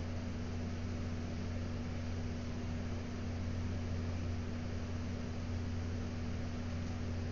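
Steady low hum under an even hiss, with no distinct events.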